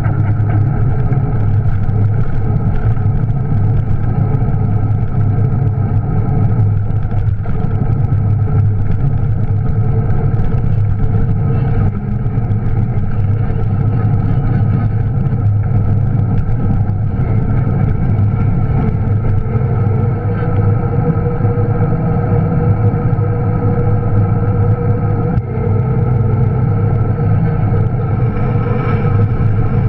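Juiced RipCurrent S electric bike's hub motor humming steadily while riding, its sound carried straight into the camera through a rigid aluminum mount with no isolation.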